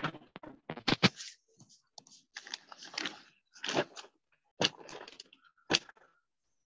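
A series of sharp clicks and knocks with short scraping, rustling noises between them.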